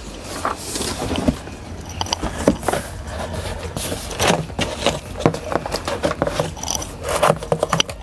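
Large cardboard box being tipped over, laid on a table and handled open: irregular scraping, rubbing and knocking of cardboard.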